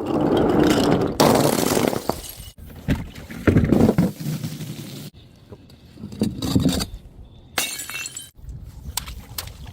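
Glass bottles smashing and shattering: a long crash over the first two and a half seconds, then several shorter breaks, one with a brief ringing of glass.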